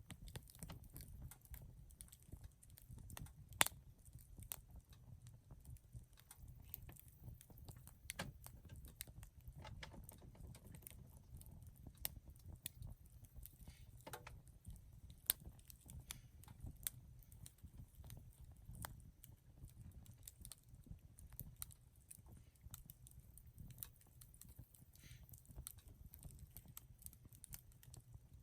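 Wood campfire crackling: irregular sharp pops and snaps over a faint low rumble, the loudest pop about three and a half seconds in and another strong one around fifteen seconds.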